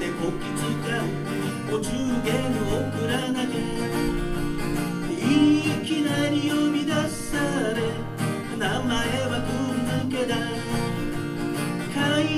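Dreadnought steel-string acoustic guitar strummed and picked steadily, a solo accompaniment before the first sung verse.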